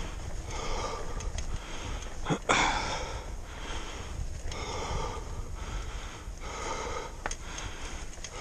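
A person breathing hard and wheezing from the exertion of climbing uphill, about one breath a second. There is a sharp knock or scuff about two and a half seconds in.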